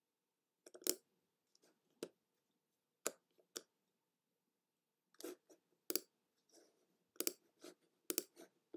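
Faint, irregular clicks of a computer being clicked through, about a dozen short sharp clicks, some in quick pairs, with silence between.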